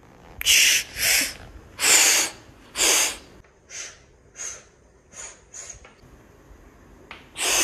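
A series of sharp, breathy hissing bursts: four loud ones in the first three seconds, then five fainter, shorter ones, and another loud one near the end.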